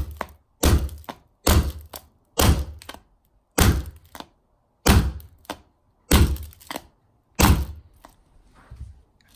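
Ball-peen hammer striking the glass back of an iPhone 4 over and over, about one dull, knocking blow a second and slowing slightly, around eight in all, the phone sitting in a thin plastic tray. The blows stop near the end, leaving a few faint light taps.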